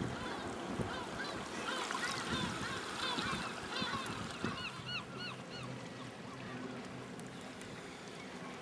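Many birds calling at once, short rising-and-falling honking calls overlapping, busiest in the first half and thinning out after about five seconds.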